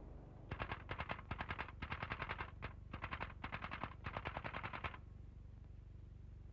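Typewriter keys striking in quick runs of about ten a second, several bursts with short pauses, stopping about five seconds in.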